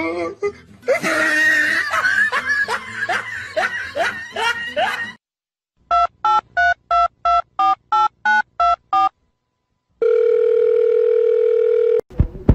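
Repeated short rising squeals, then about thirteen electronic telephone-keypad beeps at roughly four a second, then a steady telephone dial tone for about two seconds. The phone tones are sound effects laid over a finger pressing a dog's paw pad like a button.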